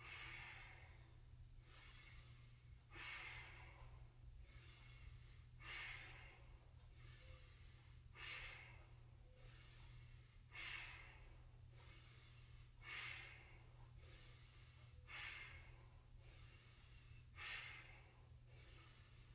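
Faint, even breathing by a woman, in and out about once a second, with a slightly stronger breath about every two and a half seconds, paced to slow yoga movement.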